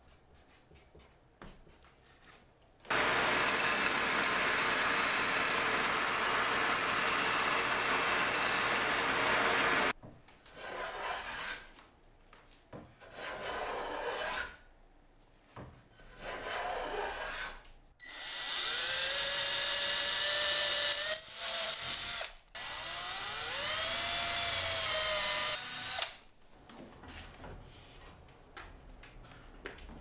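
Wood-cutting sequence: a power tool cuts wood steadily for about seven seconds, then a hand block plane takes several short shaving strokes across the edge of the wooden stem. After that an electric drill spins up twice, rising in pitch as it bores holes through the stem, and a few light taps follow near the end.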